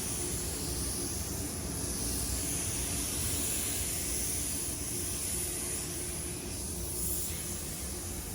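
Paint spray gun hissing steadily with compressed air, the hiss swelling and easing slowly, over a low rumble.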